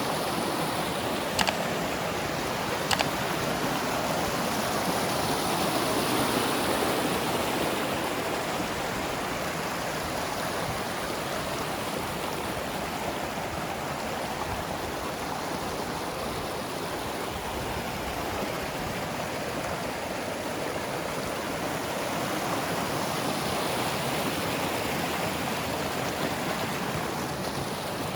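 Mountain stream rushing over rocks, a steady roar of water that swells and eases slowly. Two sharp clicks in the first few seconds.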